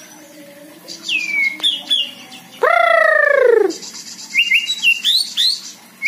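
White-rumped shama (murai batu) singing in a cage: sliding whistles and quick high trills, with one loud, long call falling in pitch about halfway through.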